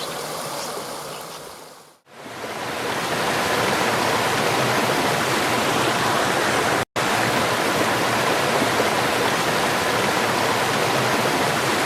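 Cascading water of a waterfall rushing steadily. A quieter stretch fades out about two seconds in, then a louder rush swells in and holds, broken once by a brief gap of silence a little past halfway.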